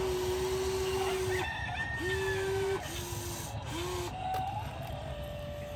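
Small electric gear motors of a radio-controlled toy excavator whining in short spurts as the boom and arm move. Each spurt rises quickly to a steady pitch and holds: the first lasts over a second, then three shorter ones follow about a second apart.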